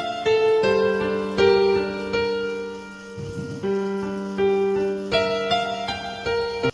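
Background piano music: a slow melody of single held notes over sustained lower notes, dipping quieter briefly about halfway through.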